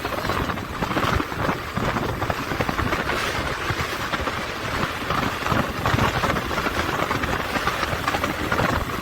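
Motorcycle riding along a road: wind buffeting the action camera's microphone in a steady, fluttering rush, with the bike's engine running underneath.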